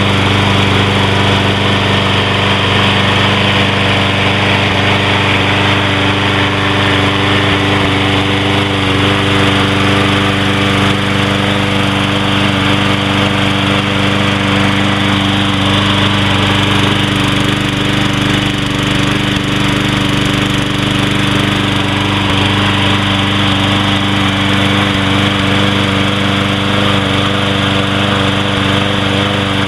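Troy-Bilt push lawn mower's auto-choke engine running steadily at a constant speed, just after starting.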